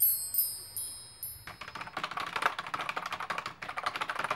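A shimmering, wind-chime-like flashback sound effect rings out with several strikes over the first second and a half. Then comes fast, continuous typing on a computer keyboard.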